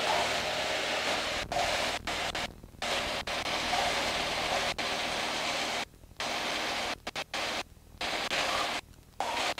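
Steady rushing noise of a Decathlon light aircraft's engine and airflow, heard through the cockpit intercom, which cuts out abruptly several times and falls to a faint hiss at the end.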